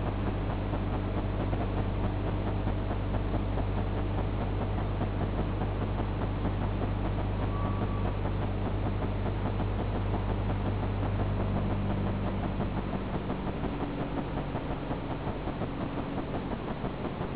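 Automatic chain link fence machine running: a steady motor hum under a dense, continuous mechanical clatter. About thirteen seconds in the hum drops away and the clatter carries on, more uneven and a little quieter.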